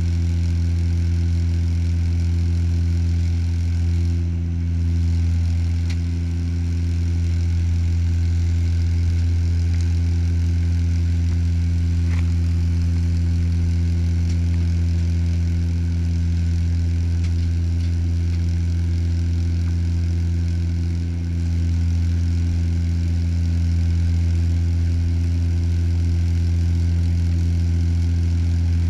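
Turboprop airliner's engines and propellers droning steadily inside the passenger cabin on approach: a deep hum with a stack of steady tones above it. The level dips briefly twice, about four seconds in and again about twenty-one seconds in.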